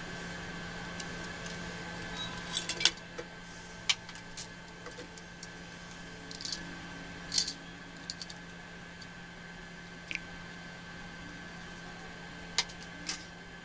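Scattered sharp clicks and light metallic clinks of small hard parts being handled, about a dozen spread irregularly, over a steady low hum.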